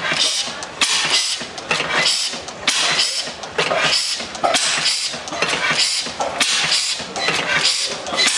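Hille inverted slide-valve stationary gas engine with flame ignition running, giving a regular sharp hissing puff a little more than once a second as it fires.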